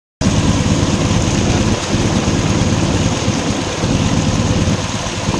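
Small boat's engine running steadily with a low, even hum, pushing a narrow wooden river boat along, with rushing wind and water hiss over it.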